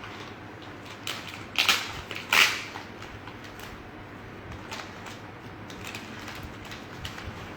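Handling noises from a cycling bag and its packaging being unpacked: two sharp rustling scrapes about a second and a half and two and a half seconds in, then a few faint clicks.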